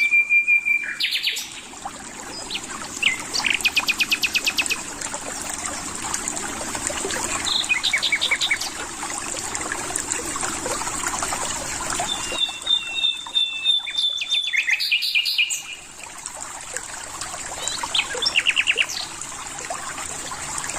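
Several songbirds singing and calling: fast trills of rapidly repeated notes and long level whistles come and go throughout, over a steady background hiss.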